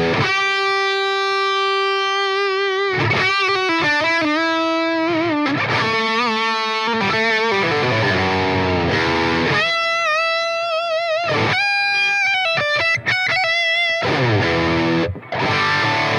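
Electric guitar playing a slow lead melody with reverb: long sustained notes with vibrato and string bends. It goes through a cabinet impulse response miked with a single Telefunken M80.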